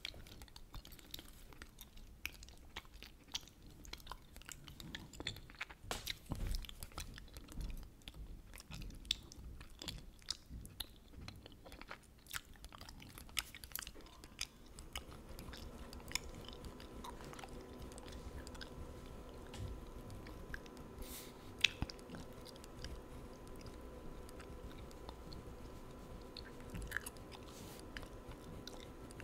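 Gum chewed close to the microphone: irregular wet smacks and clicks. A faint steady hum comes in about halfway through.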